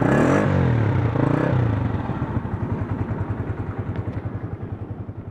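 Honda CG 125's single-cylinder four-stroke engine blipped twice, the pitch rising and falling back each time, then settling to a steady idle that grows gradually quieter.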